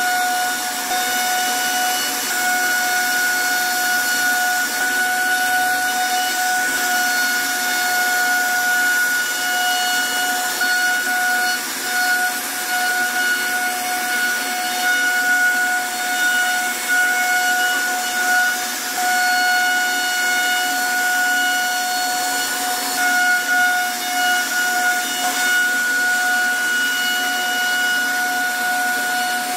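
CNC router spindle running with a steady high-pitched whine while its bit carves grooves into a wooden board, with the hiss of the wood being cut.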